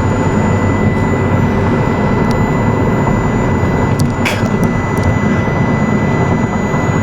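Steady low rumble of a car on the move, heard from inside, with a faint steady high tone running through it.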